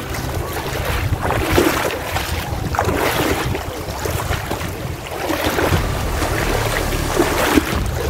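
Rushing river water with wind buffeting the microphone, a steady noisy wash with gusty rumbles.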